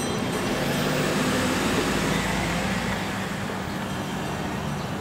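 Road traffic noise with a car engine running close by, swelling a little in the first half and then easing off.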